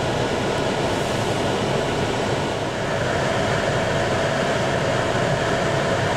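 Car heater blower fan running at its maximum setting, a steady loud rushing, over the engine idling. Fan and lights are on as an electrical load on the alternator for a charging test.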